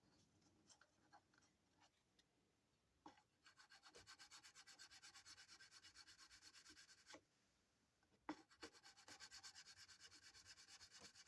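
A metal file rubbing back and forth on a sterling silver ring, taking down the solder seam. The strokes are faint and even, about four a second, in two runs with a short pause between.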